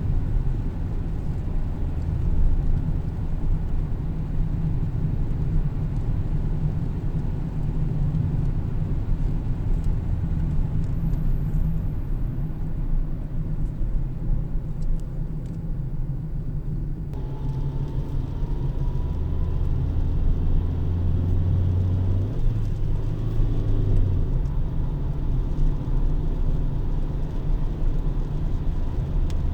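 Steady low rumble of car road noise, with a deeper hum swelling for a few seconds past the middle.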